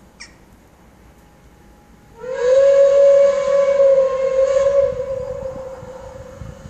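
Steam whistle of the steam locomotive 65 018: one long blast starting about two seconds in, sliding up slightly at the onset, then fading away over the last couple of seconds.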